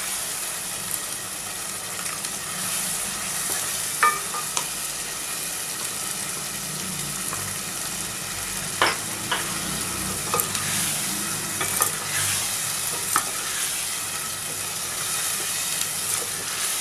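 Mutton and spice masala sizzling in a pan while a spoon stirs it, with a few sharp clicks of the spoon against the pan. Sour curd has just been stirred into the frying masala.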